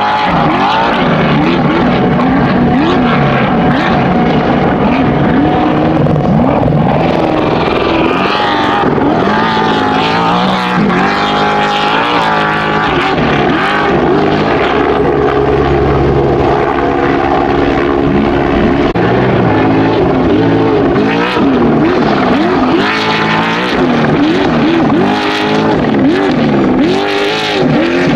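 Trophy Truck race engines revving hard, their pitch climbing and dropping again and again as the trucks accelerate and run past.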